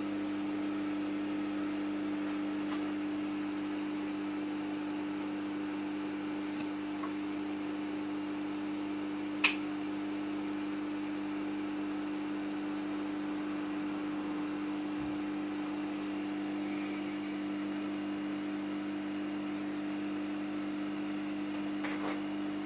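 Steady hum of a running reef aquarium's equipment (circulation pumps and protein skimmer), with one sharp click about nine and a half seconds in.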